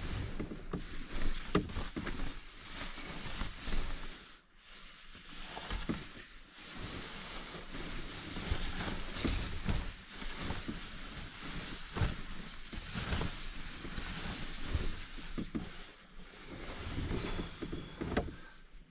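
Sheets and a sleeping bag rustling and swishing as they are shaken out and spread over a bed, with scattered soft knocks of someone shifting on the mattress.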